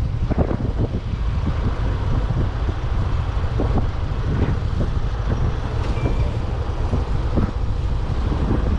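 Motorbike riding noise: heavy wind rumble on the microphone mixed with engine and road noise, steady throughout.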